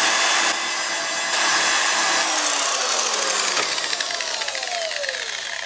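Electric angle grinder with a wire cup brush running and scrubbing across a flat LCD monitor screen. From about two seconds in it is switched off and winds down, its whine falling in pitch and fading.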